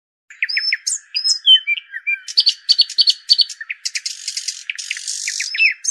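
Songbirds chirping and whistling: a busy run of quick chirps, short trills and brief whistled notes over a steady high hum.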